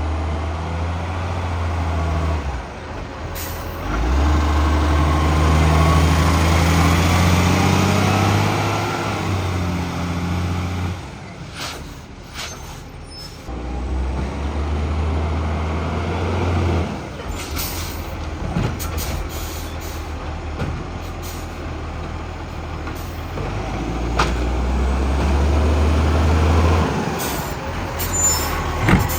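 2010 garbage truck's diesel engine, which has a bad exhaust leak, running and revving up three times. Short sharp air-brake hisses and clanks come between the revs.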